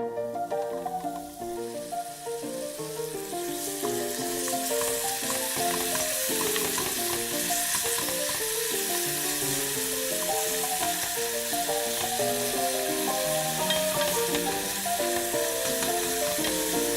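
Food sizzling and frying in a hot pan, the hiss growing fuller about four seconds in and then holding steady, over a light melodic background music track.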